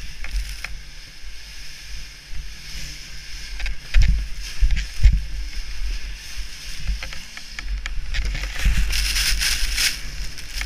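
Sled being towed fast over snow: wind buffets the action camera's microphone and the sled hisses as it slides, with two hard bumps about four and five seconds in. The hiss of snow spray grows louder near the end.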